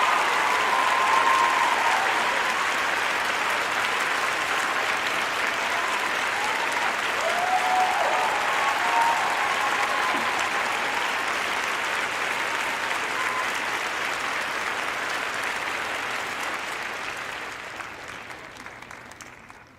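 Large crowd clapping and cheering, with a few voices calling out now and then. The applause fades away over the last few seconds.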